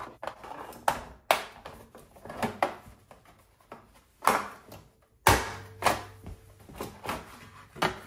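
Plastic snap-fit clips of an all-in-one computer's rear cover popping loose and the plastic panel clacking as it is pulled apart by hand: a string of irregular sharp clicks and snaps, the loudest a little past five seconds in.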